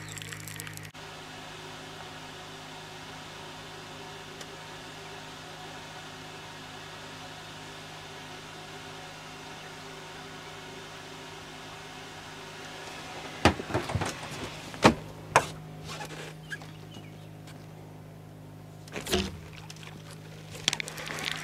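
A boat motor hums steadily throughout. A few sharp knocks come about two-thirds of the way through, and one more near the end.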